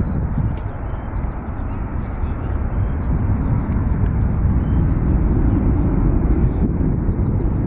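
Airliner jet engines rumbling, slowly growing louder, with small birds chirping faintly.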